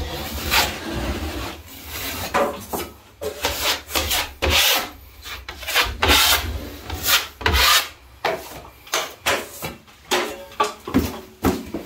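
A steel drywall finishing blade scraping across the ceiling, spreading joint compound in repeated short strokes, roughly two a second.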